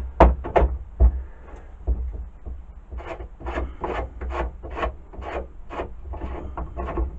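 Parts of a Black & Decker D-994 lathe attachment scraped and rubbed by hand as they are loosened and adjusted. The sound comes as a run of short strokes, about two a second from the middle on.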